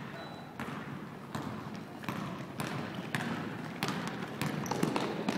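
Basketball bouncing on a hardwood gym floor as it is dribbled up the court, about two sharp bounces a second, with players' running footsteps.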